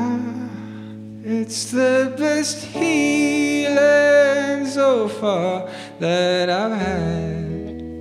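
Live folk-rock band: a voice sings long, gliding notes with no clear words over sustained chords and a low bass note.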